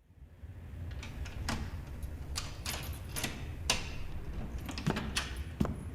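Scattered light clicks and knocks, about eight of them at uneven spacing, over a low steady hum.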